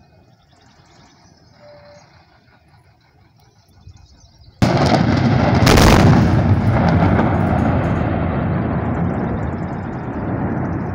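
Mine blast: explosive charges going off with a sudden loud report about four and a half seconds in, followed by a long rumble that slowly fades.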